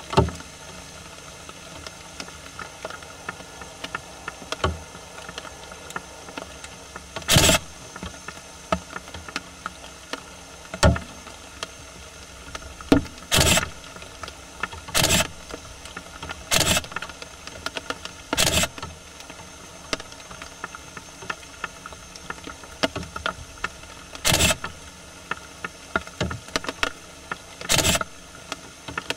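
Japanese raccoon dogs foraging in dry leaf litter close by: short noisy rustles come every few seconds at uneven intervals, with fainter ticks and scuffs between them over a steady hiss.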